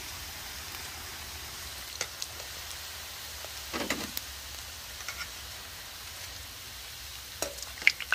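Rice cake deep-frying in hot oil in a wok, a steady sizzle. A few sharp clicks of a metal skimmer against the wok cut through it, the loudest near the end.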